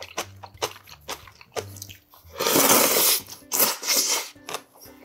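Close-up wet chewing of seafood udon noodles, then two long, loud slurps from a small bowl of udon in maesaengi seaweed broth about halfway through, followed by more chewing.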